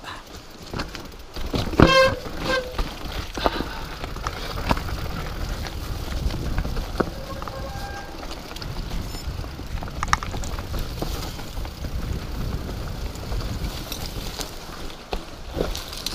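Mountain bike riding down a rocky dirt trail: tyres rolling over dirt and stones and the bike rattling over bumps, under a steady low rumble. About two seconds in, a loud knock followed by a short ringing tone.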